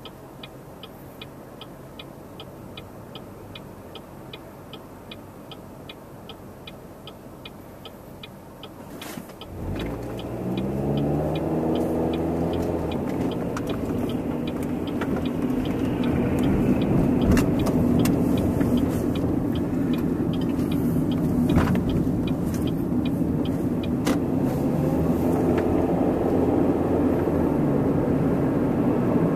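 Car heard from inside the cabin: first a steady quiet idle with the turn-signal relay ticking about two to three times a second. About nine seconds in, the engine revs up as the car pulls away, its pitch rising through the gears, then it settles into steady running with road noise and another rise in revs near the end.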